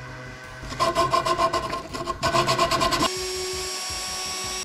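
Milwaukee M18 random orbital sander running on a pine board, with a rapid pulsing rasp. About three seconds in it changes abruptly to a Ridgid cordless drill spinning with a steady whine.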